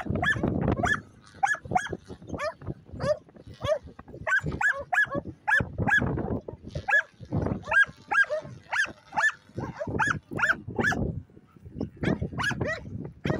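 A dog yipping and barking in runs of short, high-pitched calls, several a second at times.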